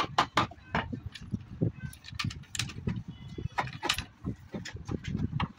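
Keys jangling on their ring while a key is worked in a small lock set into a wooden shutter, with many quick, irregular metallic clicks over the knock and rub of the panel being handled.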